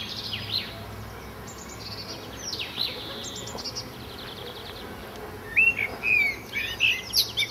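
Small birds chirping, with repeated fast high trills and, near the end, louder short whistled chirps that glide in pitch.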